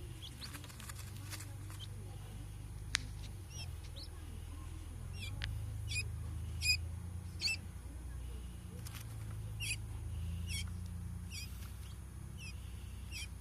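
Two-day-old Japanese quail chick peeping: short, high calls repeated about once a second, over a low rumble, with a single click about three seconds in.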